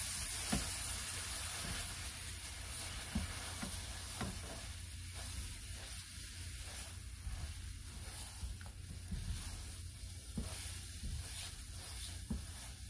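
Chopped vegetables and wine sizzling in a frying pan, stirred with a plastic spatula that now and then scrapes or taps the pan. The sizzle eases slightly after the first few seconds as the wine cooks down.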